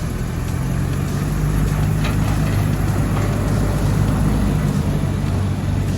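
An engine running steadily with a low hum and rumble, growing slightly louder in the first second.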